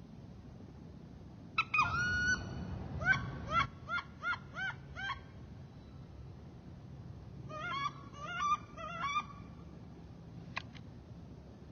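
Ducks quacking in the flooded timber. First comes one drawn-out call, then a quick run of six short calls, then a few seconds later another run of calls. A single sharp click sounds near the end.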